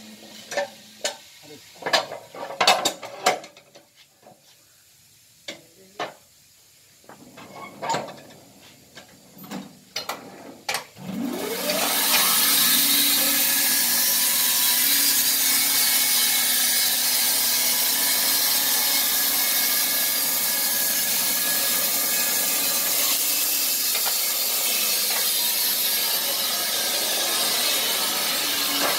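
Knocks and clanks of a log being shifted on the steel bed of a Wood-Mizer LT15 band sawmill. About eleven seconds in, the saw starts with a rising whine, then the band blade cuts steadily through the log.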